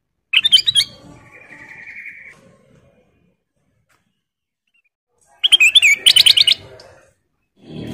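Kutilang emas bulbul singing: two short bursts of quick, warbling whistled notes about five seconds apart, the first followed by a buzzy, harsher note lasting about a second.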